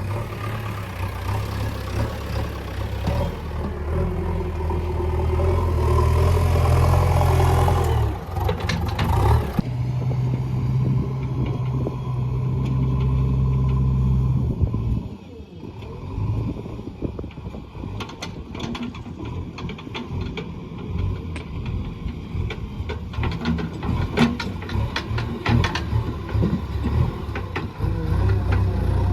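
Backhoe loader's diesel engine running under load, its pitch rising and falling as it revs. About halfway through, the steady engine sound gives way to irregular clattering and knocks.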